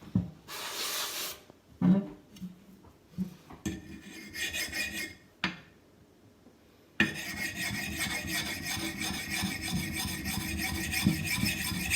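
Sharpening stone rubbed along the axe's edge bevel, a continuous gritty scraping that starts about seven seconds in, as the stone works off the file marks and the burr. Before that come scattered light knocks and a brief scrape as the tool and axe are handled.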